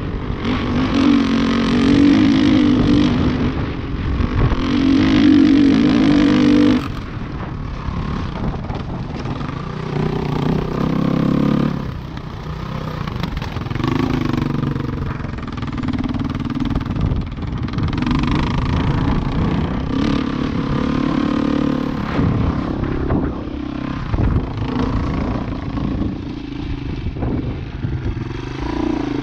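Husqvarna TE510 dirt bike's single-cylinder four-stroke engine under way off-road, its revs rising and falling with the throttle. It runs hardest for about the first seven seconds, then drops back to a lower, uneven note.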